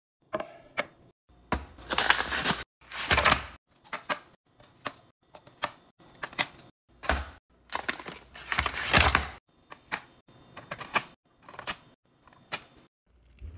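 Foil squeeze pouches crinkling and tapping as they are dropped one at a time into a clear plastic bin: a run of separate taps and knocks, with a few longer, louder crinkles.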